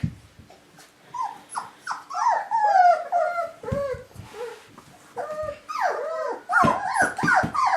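Mini Bernedoodle puppies about four and a half weeks old whimpering and yipping in short cries that rise and fall in pitch. The cries are few at first and come thick and overlapping over the last couple of seconds.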